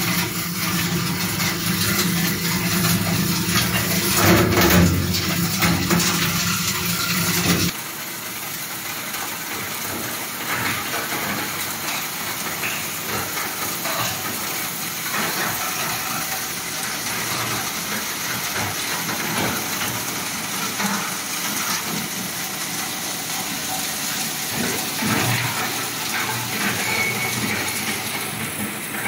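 Plastic shredder-granulator running and processing plastic: first the shredder rotor chewing chunks of blue plastic over a steady low machine hum. About eight seconds in the sound changes abruptly to a steady rushing noise of the running granulator and blower, with plastic granules pouring into a steel bin.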